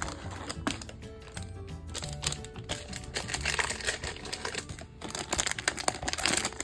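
A plastic blind bag crinkling as it is handled and opened, with a dense burst of crackling about a second before the end, over background music.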